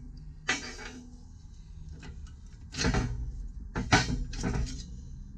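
Steel parts of a tractor backhoe quick hitch being handled and clamped for welding: a knock about half a second in, then louder clanks and scrapes of metal from about three to four and a half seconds.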